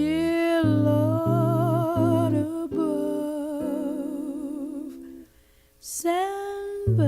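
Slow jazz music: a voice holding long, wavering melody notes with vibrato over bass and guitar. It breaks off to near silence for about half a second a little past five seconds in, then resumes with a rising held note.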